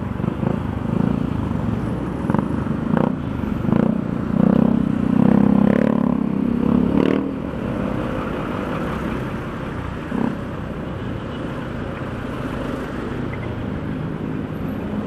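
Small motor scooter engine running at low speed in stop-and-go traffic, with surrounding traffic noise. It gets louder for a few seconds around the middle, with a few brief clatters, then settles to a steady hum.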